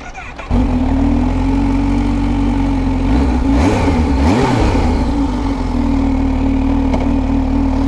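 Kawasaki Z H2's supercharged inline-four engine comes in abruptly about half a second in and idles steadily, with a brief rising-and-falling sound over it near the middle.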